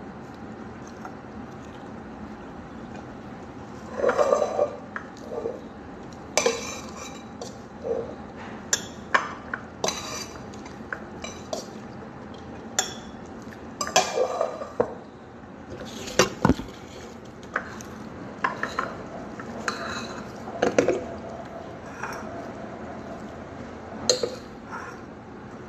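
Irregular clinks and knocks of a dinner plate and cutlery during a meal of rice eaten by hand off the plate. They start about four seconds in.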